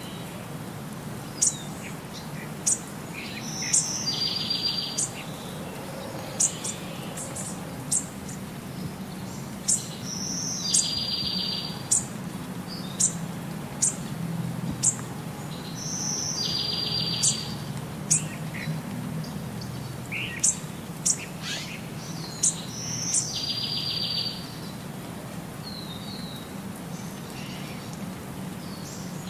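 Birdsong: many short high chirps, and a trill with a thin whistle above it that recurs about every six and a half seconds.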